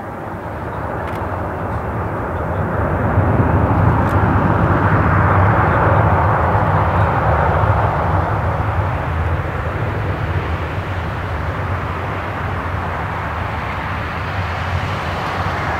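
Jet aircraft engine noise: a loud rushing roar that swells over the first few seconds and then holds steady.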